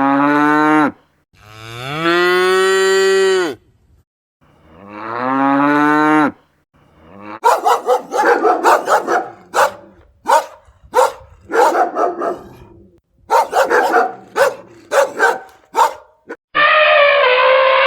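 A cow mooing three times in long drawn-out calls. These are followed by a run of many short, quick animal calls, and near the end a single long, steady call begins.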